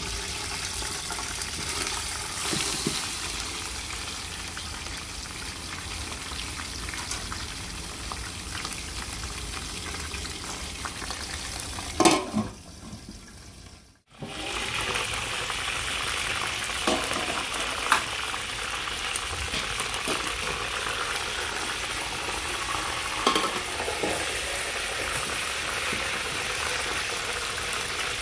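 Mutton leg frying in hot oil and onions in a steel pot: a steady sizzling hiss with small pops. About twelve seconds in there is one sharp metal clank, the sound fades out for a moment, then the sizzling comes back.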